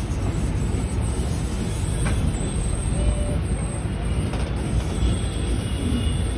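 Steady low mechanical rumble of a spinning kiddie cup ride running.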